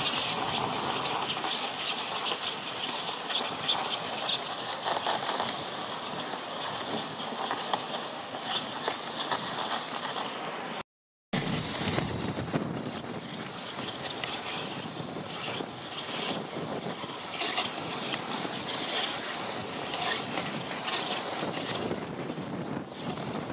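A dogsled on the move, its runners hissing and scraping over packed snow in a steady rush. The sound cuts out completely for a moment about eleven seconds in.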